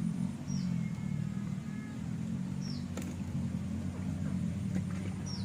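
A steady low motor hum runs throughout. Three short, high, falling chirps come about two seconds apart, and a single sharp click sounds about three seconds in.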